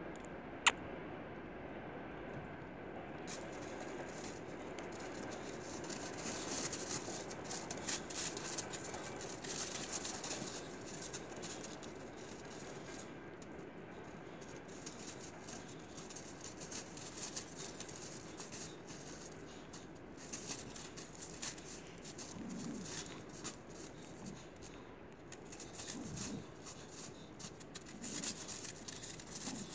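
Crunching and crackling footsteps on crusted, icy snow, with a few short low growls from boxer dogs near the end as they start to tussle. A single sharp click about a second in.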